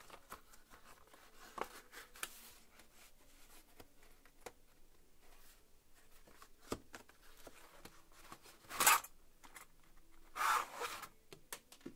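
Packaging being handled as a boxed LED flood light is worked loose, with small clicks and rustles. Two louder scraping rubs come about nine seconds in and again a second and a half later.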